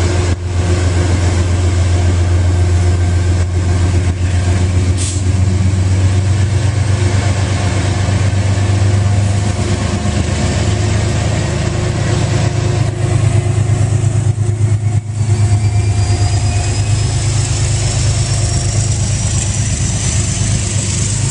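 Diesel train running close by, its locomotive engine giving a loud, steady low drone, with a faint rising whine in the second half.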